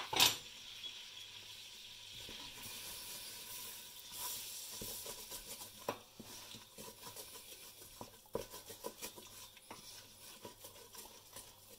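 A butter-and-flour roux sizzling gently in a stainless steel saucepan as it is stirred with a wooden spoon: the flour has just gone into the melted butter and is being cooked slowly. There is a sharp knock just after the start, then scattered light taps and scrapes of the spoon against the pan.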